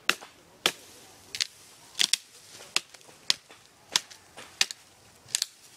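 A blade chopping at the base of a green bamboo stalk: a series of sharp, dry cracks, about one and a half strikes a second, some in quick pairs.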